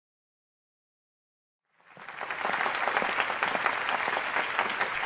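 Silence, then audience applause fading in about two seconds in and going on as dense, steady clapping.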